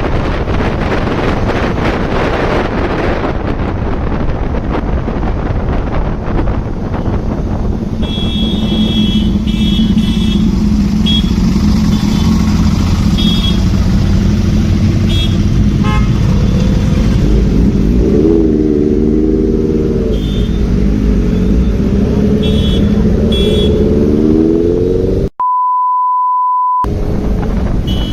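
Wind buffeting the microphone over a motorcycle engine running in traffic, with short horn toots again and again from about eight seconds in. The engine revs up twice, its pitch rising, in the second half. Near the end a steady one-tone bleep replaces all other sound for about a second and a half.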